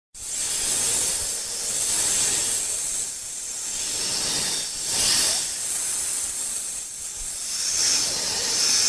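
Snake hissing: a long, continuous breathy hiss that starts abruptly and swells and eases several times.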